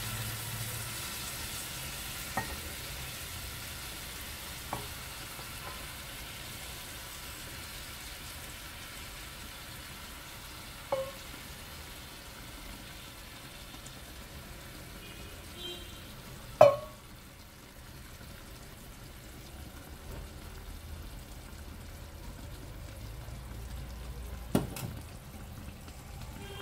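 Sugar syrup poured into a hot frying pan of fried kadayif, sizzling steadily: the normal hiss of a liquid hitting the hot, oiled pan. The sizzle slowly quietens. It is broken by a few sharp knocks, the loudest about two-thirds of the way through.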